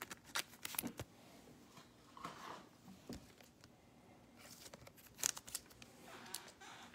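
Faint scattered clicks and rustles of trading cards being handled and sorted, with a brief crinkly rustle about five seconds in.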